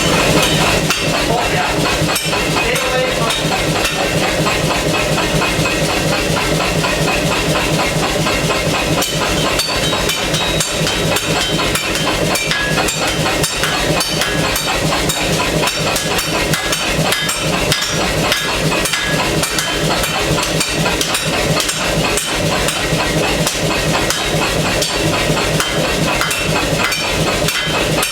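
Pneumatic air hammer pounding hot steel in rapid, even strokes, with a steady hiss underneath.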